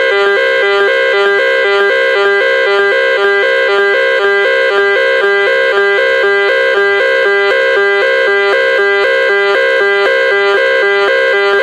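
Electronic emergency-alert alarm tone from a mock EAS broadcast: a loud two-note pattern repeating quickly and evenly, several times a second, without a break.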